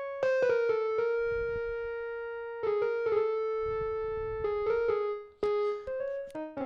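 GarageBand 'Feedback Rhodes' keyboard patch played on the touch keyboard: a few notes struck together and left ringing, twice more, then quicker single notes near the end. The tone is bright, with many overtones.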